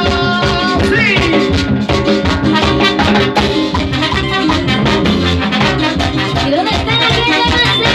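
Live band playing loud Latin dance music led by a horn section of saxophones, trumpets and trombones over a steady rhythm section, with no singing.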